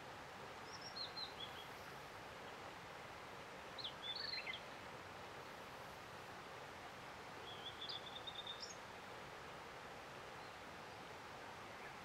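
Blue-and-white flycatcher singing three separate phrases a few seconds apart over a steady background hiss. The first is a few falling notes. The second is a short tangle of notes. The last is a fast run of repeated notes ending in a couple of high upward notes.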